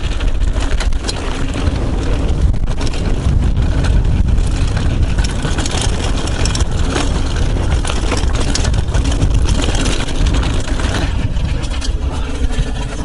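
Yeti SB75 mountain bike riding fast down a loose, rocky dirt trail: steady wind rumble on the chest-mounted camera's microphone, with tyres crunching over gravel and many quick clatters as the bike rattles over rocks.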